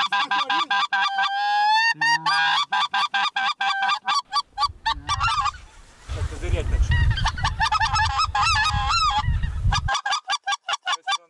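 A flock of geese calling in rapid, overlapping high honks. A low rumble runs underneath from about four and a half seconds in to about ten seconds in.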